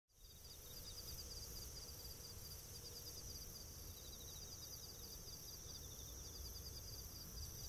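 Faint nature ambience of insects chirping: runs of rapid, evenly pulsed high chirps over a steady high hiss and a low rumble.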